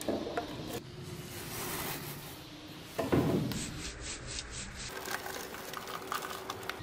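Gritty rubbing and scraping of moulding sand as gloved hands crumble and sift it into a wooden casting flask. A sudden louder thud comes about three seconds in, followed by a short run of quick scrapes.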